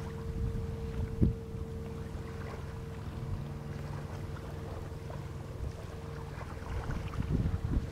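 Crab boat's motor running steadily, heard across open water, with a steady hum over a low rumble. One sharp knock about a second in, and wind buffeting the microphone in gusts near the end.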